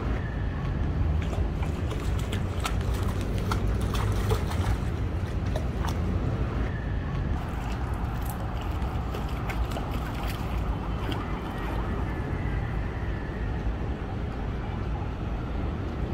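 Steady low rumble of city traffic, with scattered faint clicks and a faint high tone a few times.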